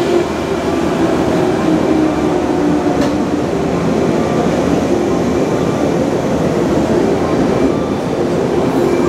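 Yellow electric commuter train running past along a station platform: a steady rumble of wheels and motors with some humming tones as the cars go by, echoing under the platform's concrete roof.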